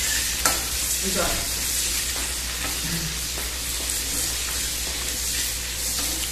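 Chopped garlic and onion sizzling in oil in an aluminium wok while a metal spoon stirs and scrapes against the pan, a steady hiss with a sharp tap about half a second in.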